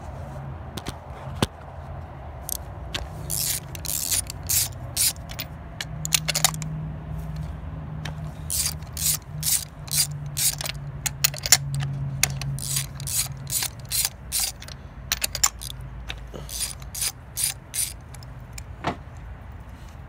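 Hand socket ratchet on an extension clicking in quick runs of several clicks a second, backing spark plugs out of the engine's cylinder head.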